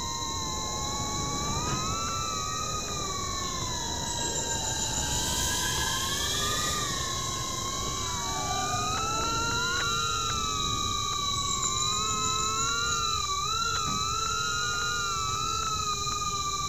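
Motors of a 75 mm micro FPV drone whining in flight, the pitch wandering up and down as the throttle changes. A steady high tone runs underneath.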